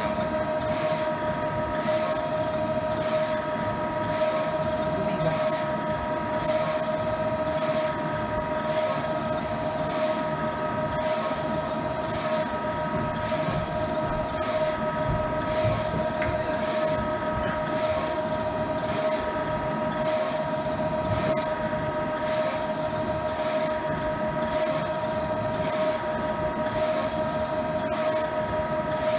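6040 UV flatbed printer running a nozzle test: a steady machine hum made of several held tones, with short high ticks repeating about twice a second.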